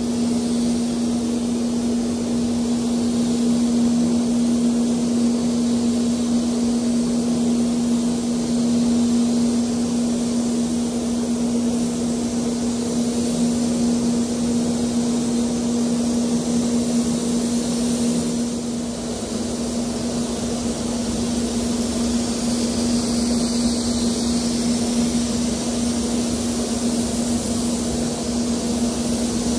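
Air-fed gravity spray gun hissing steadily as it sprays primer, over the steady hum of the spray booth's air extraction; the spraying eases briefly about two thirds of the way through.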